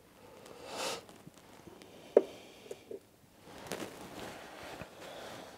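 Old engine oil draining in a thin stream from the sump into a plastic drain pan, right after the drain plug is pulled: a faint, uneven trickle, with one sharp click about two seconds in.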